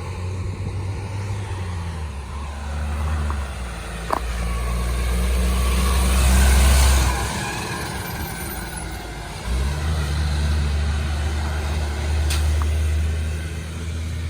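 Garbage truck engine running, swelling to its loudest about six to seven seconds in, then dipping briefly before running on. A sharp click about four seconds in.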